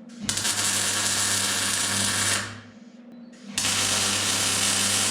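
Welder tack-welding a window frame onto a door frame: two steady, hissing, buzzing welds of about two seconds each, the second starting about three and a half seconds in.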